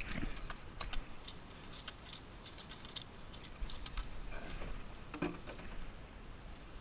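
Scattered light taps and clicks from handling a freshly caught fish and a plastic bucket.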